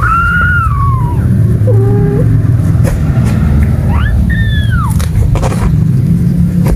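Kitten meowing: a long falling mew at the start, a short lower call near two seconds, and a rising-then-falling mew about four seconds in. All of it sits over a steady low rumble.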